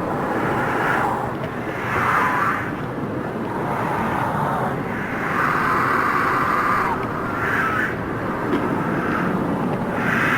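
Scary monster-snarling sound effect: a harsh, rough noise bed with raspy surges every one to two seconds.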